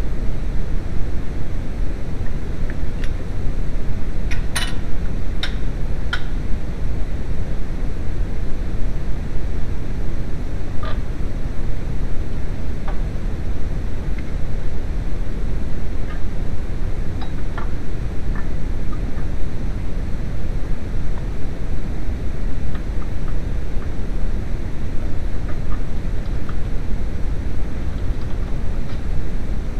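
Steady low rumbling noise with a few light clicks and clinks, the clearest about four to six seconds in.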